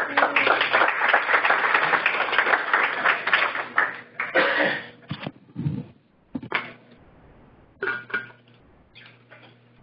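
Small audience applauding in a lecture room for about four and a half seconds, then dying away, followed by a few short scattered sounds of people stirring.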